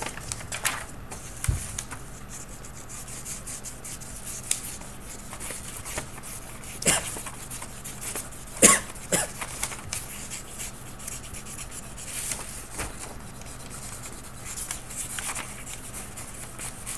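A pen scratching and rubbing across paper in drawn strokes, with a few short sharp scrapes and taps, the loudest about seven and nine seconds in.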